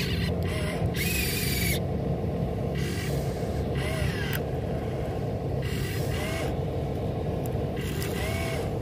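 Huina RC excavator's electric motors whirring in short starts and stops as the arm digs, lifts and swings the bucket, over a steady low hum.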